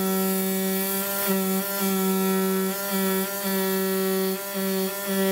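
Pneumatic oscillating knife tool on a Zünd cutting machine cutting rubber. It gives a loud, steady buzzing hum at one pitch, which dips briefly about five times.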